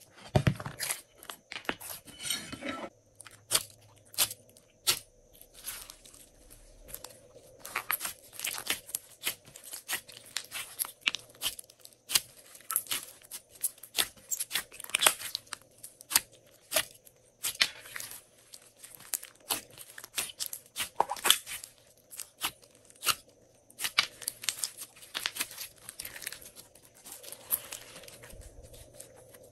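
Glossy slime being squished, pressed and stretched by hand, giving many short, sticky clicks and crackling pops at an irregular pace.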